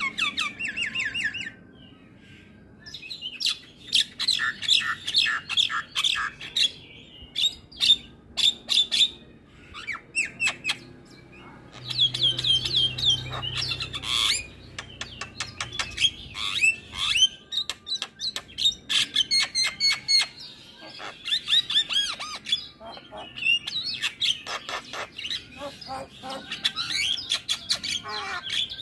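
Javan myna in full song: quick runs of short, high notes in phrases a second or two long, with short pauses between them.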